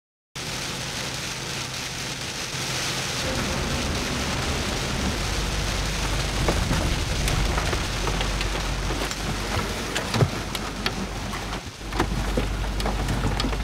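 Rain falling steadily on a car's window and roof, with many scattered sharp drop ticks and a low rumble underneath. It starts abruptly about half a second in.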